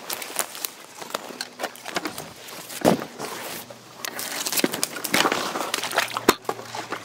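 Footsteps and rustling through brush, with many sharp clicks and knocks from handling the gear. The loudest knocks come about three seconds in and again after six seconds.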